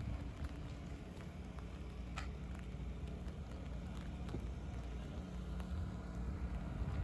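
Steady low rumble of a moving vehicle, with a faint steady hum.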